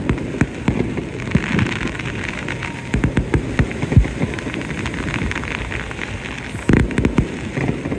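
Fireworks going off: a dense run of crackling pops and booms, with louder bangs about three and four seconds in and again near the end.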